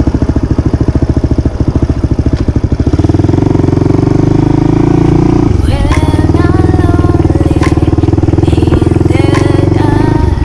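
Dirt bike engine running with an even, rapid beat, just after being started, as the bike pulls away over gravel. Its note grows louder about three seconds in and shifts about halfway through, with a higher wavering tone over it in the second half.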